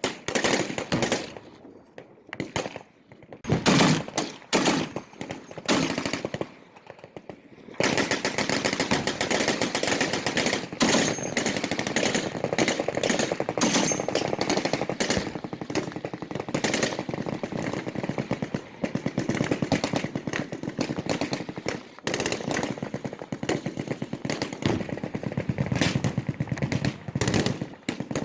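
Automatic machine-gun fire: scattered bursts with short gaps for the first several seconds, then near-continuous firing from about eight seconds in.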